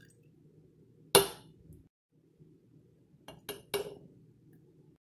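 Metal teaspoon clinking against a glass mason jar: one sharp clink about a second in, then three lighter clinks in quick succession about two seconds later.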